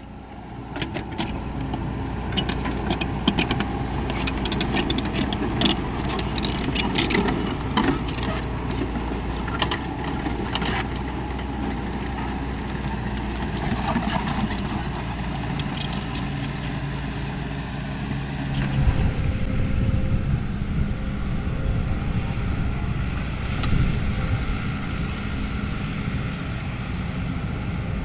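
Kobelco SK75 excavator's diesel engine running steadily, with metallic clanks and rattles during the first half. The engine note changes about two-thirds of the way through.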